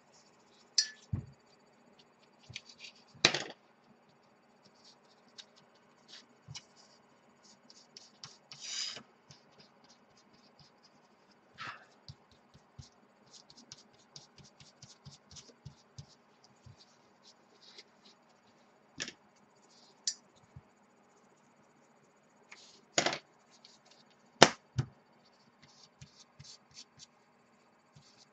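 Tissue rubbing and scratching over small plastic model parts, wiping off a dried clay-based wash. Scattered light clicks and a few sharper knocks come as the parts and tools are handled on the cutting mat.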